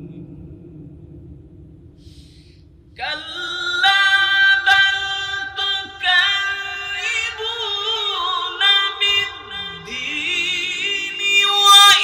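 A man's melodic Qur'an recitation (tilawat) in one sung voice. After a quiet pause of about three seconds, a long line begins with held notes, ornamented turns and glides, and grows louder near the end.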